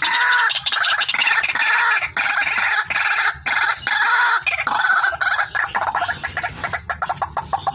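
White-breasted waterhen (ruak-ruak) calling: a loud, fast, continuous run of harsh, rapidly repeated notes with only brief breaks.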